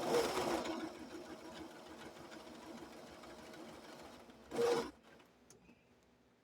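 Electric sewing machine stitching, a steady mechanical whir that starts loud, eases off and stops about five seconds in, with a brief louder surge just before it stops.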